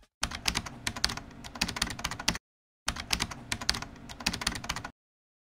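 Rapid keystroke clicks of typing, in two runs of about two seconds each separated by a short pause, each ending abruptly.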